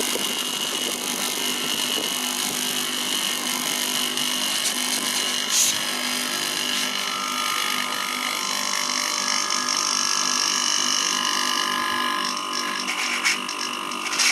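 Haier air conditioner compressor running steadily under a test, a continuous motor drone drawing about 4.6 amps, with a brief click about five and a half seconds in. The compressor is in good condition, building good pressure.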